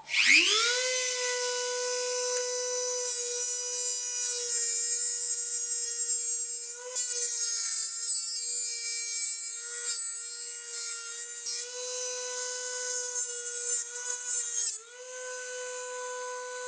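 A small electric power tool's motor spins up to a high, steady whine and runs on, its pitch sagging briefly twice, about halfway and near the end, as it meets load, with a rubbing, cutting sound on the work.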